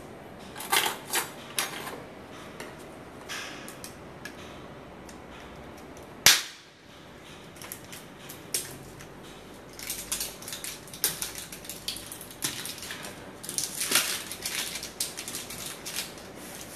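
Plastic clicks and knocks from handling a BSN Syntha-6 protein tub, its screw-top lid and a plastic blender jug. There is one sharp, loud knock about six seconds in, and a run of quick rattling clicks over the last six seconds.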